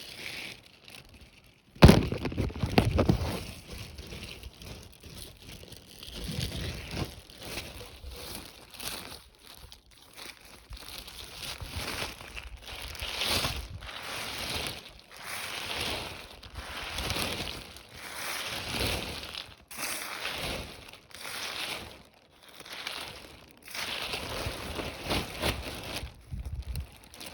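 Repeated crumpling and rustling handling sounds in uneven swells, with one sharp knock about two seconds in.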